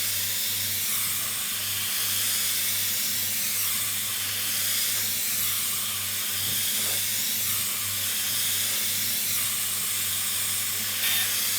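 Jellyfish high-speed hair dryer wand blowing a steady, airy hiss while it dries and flattens a section of hair, with a faint low hum underneath.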